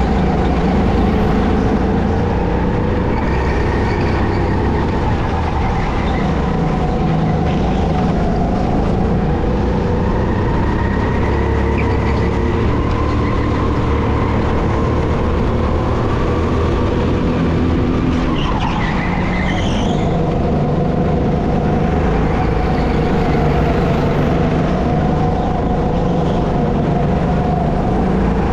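The 200cc four-stroke engine of an SR5 rental kart running hard through laps, its pitch rising and falling as the driver goes on and off the throttle, with a brief tyre squeal about two-thirds of the way through.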